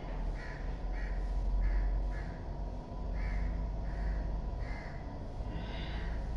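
Crows cawing over and over, short calls coming about every half second, over a steady low rumble.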